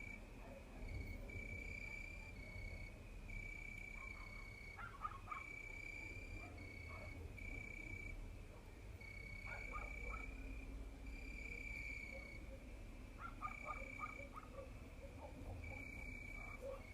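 Crickets singing, a steady high chirp repeated in short trills about once a second. A few faint clusters of crackling clicks come in between.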